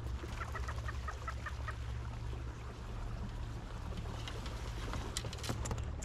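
Kayak trolling motor humming steadily while a bird gives a quick run of about nine short, evenly spaced notes in the first second and a half. Near the end, scattered sharp clicks and a louder rustle as reeds brush against the kayak and camera.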